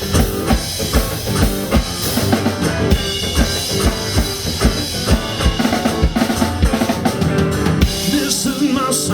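Music: an instrumental beat with a steady kick and snare drum pattern over sustained bass notes, without vocals.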